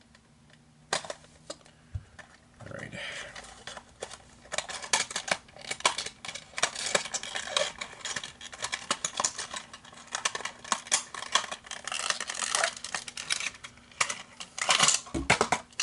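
A 1:64 NASCAR diecast car being unboxed by hand: a busy run of clicks and crackles from its windowed cardboard-and-plastic packaging. It starts a couple of seconds in, after a few single clicks, and runs almost to the end.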